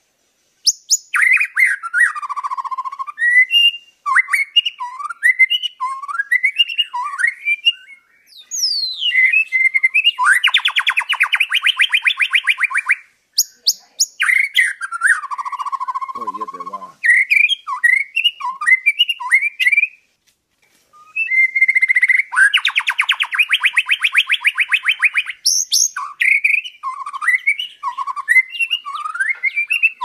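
White-rumped shama (murai batu) singing: a run of clear, varied whistled phrases that glide up and down, broken by brief pauses. Two long, fast rattling trills come in, one about ten seconds in and another about twelve seconds later.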